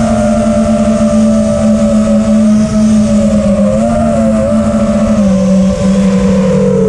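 FPV racing quadcopter's brushless motors and propellers whining in flight, heard from the camera on board. The pitch holds fairly steady with small rises and dips as the throttle changes, and steps down about five seconds in.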